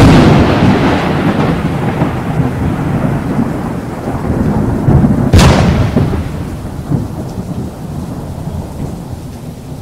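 Thunder with rain: a sharp thunderclap at the start and a second about five seconds in, each rolling off into a long, fading rumble.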